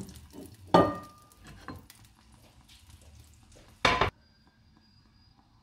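Cookware clattering: a knock at the start, a metal clank that rings briefly about a second in, and a short harsh clatter about four seconds in, over a faint frying sizzle that cuts off abruptly right after it.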